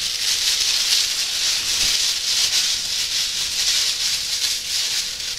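Clear plastic roasting film crinkling and rustling as it is handled and shaken open, a dense crackle that never lets up.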